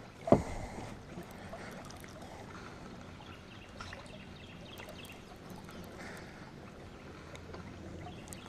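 One sharp thump just after the start, then quiet river ambience with faint bird chirps.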